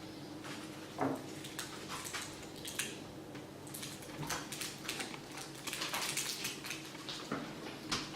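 Pet cockatiels moving about and pecking, making irregular small clicks, taps and scratches with a louder knock about a second in. A faint steady hum runs underneath.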